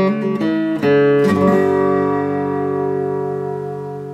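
Intro music: a few strummed guitar chords in quick succession, then a final chord ringing out and slowly fading.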